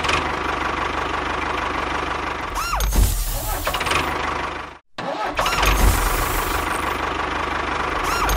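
A motor or engine running steadily with a fast low pulsing. It cuts out abruptly for a moment about five seconds in, then carries on.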